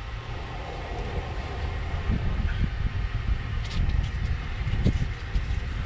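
Hand tools working the exhaust manifold bolts from under the car: a few light metallic clicks of a wrench over a steady low rumble.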